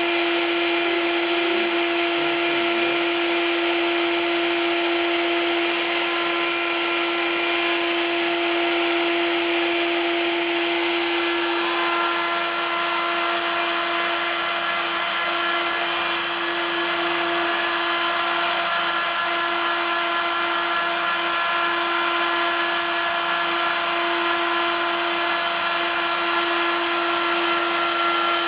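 A DIY CNC mill's spindle running steadily while milling plywood: a constant whine over cutting noise, with some of the tones shifting about twelve seconds in.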